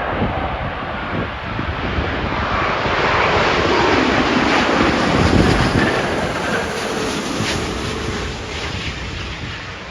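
Jet airliner passing low overhead on final approach, its engine noise swelling to a peak about halfway through and fading toward the end, with wind buffeting the microphone.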